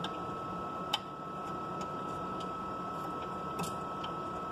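Small, sparse metallic clicks as a 1.5 mm hex screwdriver is worked in the stage's retaining screws, the clearest about a second in, over a steady faint hum with a thin high tone.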